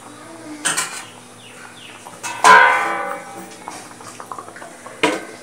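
Metal cookware clanking: a loud clang about halfway through that rings and dies away over about a second, with lighter knocks just before and near the end, as a metal lid is handled and set on the kadai.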